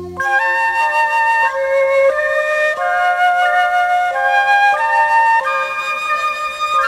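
Background music: a slow flute melody playing one note at a time, each note held about half a second.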